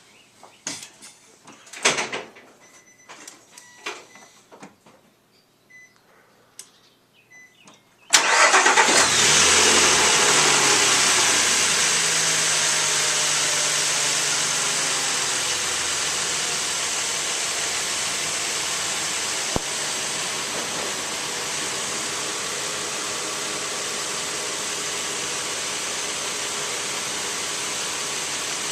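A few scattered knocks and clicks, then about eight seconds in the Nissan Frontier's engine starts suddenly and runs at a fast idle that slowly drops and settles into a steady idle. It is the first start after an oil change, with the new oil filter still empty.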